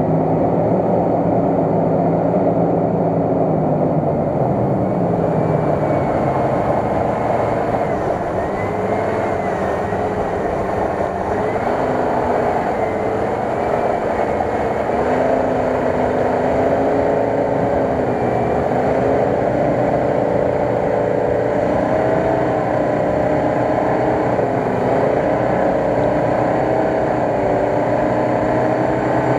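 Jeep Grand Cherokee's engine held at high revs as it pushes through deep mud, its pitch sagging early on and then wavering up and down as the load changes.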